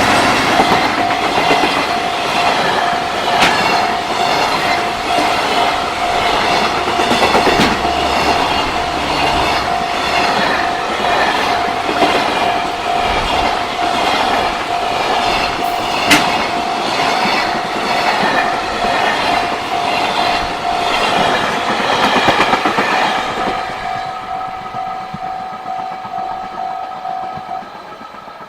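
A freight train hauled by an EF210 electric locomotive runs past close by, its wheels clacking over the rail joints, while the level crossing's warning bell rings over it in a steady pulsing tone. The train noise fades over the last few seconds as the bell keeps ringing.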